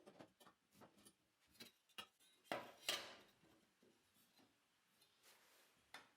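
Faint scattered clicks and light knocks, the loudest two about two and a half and three seconds in, over near silence.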